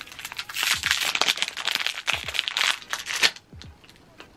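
Crinkly plastic wrapper of a small sealed packet being crumpled and torn open by hand, crinkling for about three seconds and ending with a louder crack, then dying away.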